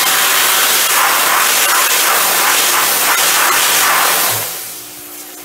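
Pressure washer jet spraying at close range into a tiled shower corner against the glass door, a loud steady hiss that stops about four and a half seconds in.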